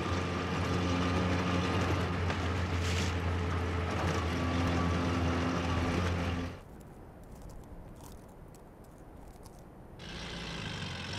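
Four-wheel-drive SUV engine running at steady revs while driving over a muddy track. It cuts off abruptly about six and a half seconds in, leaving a much quieter background that rises again near the end.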